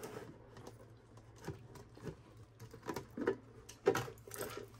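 Scattered clicks and knocks of a clear plastic food container and the cashews inside being handled, its lid worked and a pet monkey's hands rummaging in for nuts. The loudest knocks come near the end.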